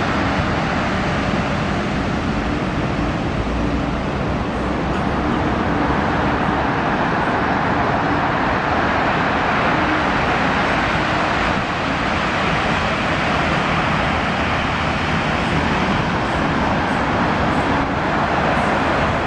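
Steady road traffic noise, a continuous rush of passing cars with a low rumble under it.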